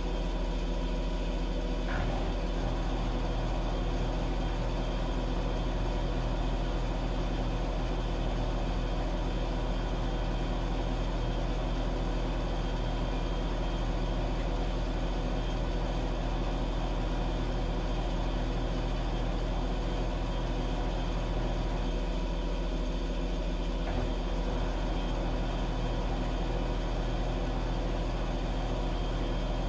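Washing machine running with a steady low mechanical hum, with a couple of faint clicks.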